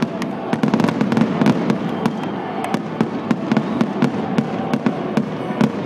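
Aerial fireworks display: a rapid, continuous barrage of sharp bangs, several a second, over a crackling rumble from many shells bursting together.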